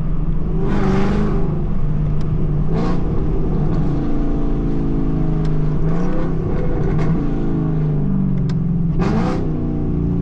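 A loud car engine and exhaust heard from inside the cabin while driving. The engine pitch climbs and drops several times as the car accelerates, with brief rushes of noise along the way.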